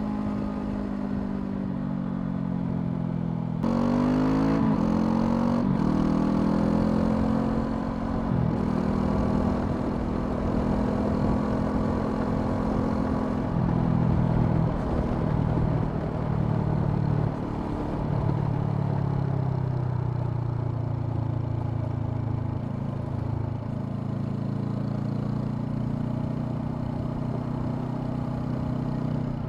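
Honda CL500's parallel-twin engine under way: steady running, then about four seconds in it is opened up, the pitch climbing in short rises broken by quick upshifts. It then cruises and settles to lower revs for the rest.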